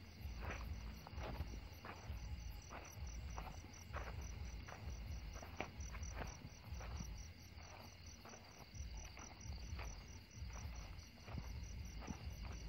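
Crickets chirping steadily in a high, even pulse of about three or four chirps a second, with soft rustles and thuds of footsteps and handling underneath.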